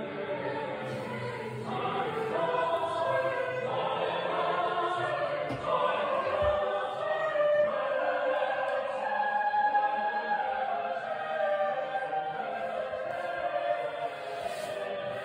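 Background choral music: a choir singing long, held notes.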